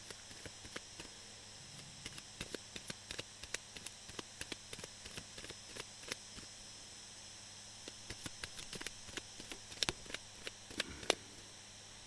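A deck of oracle cards being shuffled by hand: a run of soft, irregular clicks and taps, with a few sharper snaps about ten seconds in.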